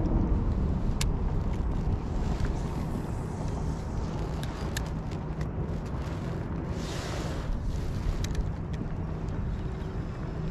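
Wind rumbling on the microphone, with scattered small clicks and knocks of fishing gear being handled and put away in a kayak, and a brief hiss about seven seconds in.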